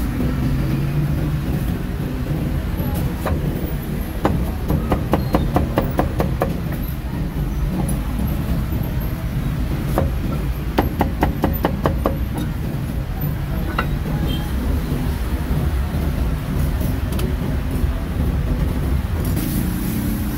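Street-stall ambience with a steady low traffic rumble. Twice there is a run of quick, sharp knocks, about four to five a second, like a cleaver chopping roast meat: first about four seconds in, then again about eleven seconds in.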